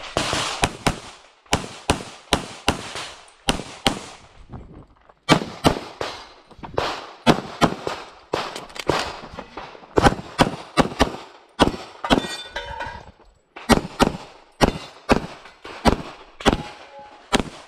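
Infinity 2011 pistol in .40 S&W firing fast shots, mostly in quick pairs, with brief pauses between strings during a practical-shooting stage run.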